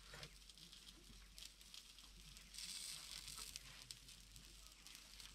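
Faint kitchen handling: small clicks and rustles as ribs are lifted from the pan onto a plate, with a brief soft hiss about two and a half seconds in.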